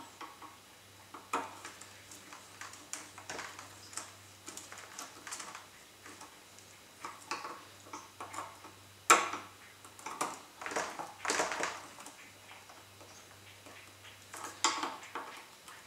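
Small clicks and scrapes of a hand screwdriver turning wood screws into a wooden motor mount, with one sharper click about nine seconds in.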